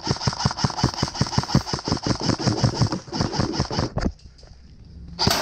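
Airsoft electric rifle (AEG) firing a long full-auto burst: a rapid, even stream of shots with the gearbox cycling, cutting off about four seconds in. A short loud burst follows near the end.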